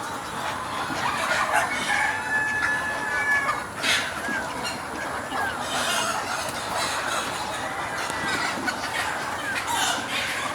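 A flock of free-range chickens clucking, with a rooster crowing. There is a brief sharp sound about four seconds in.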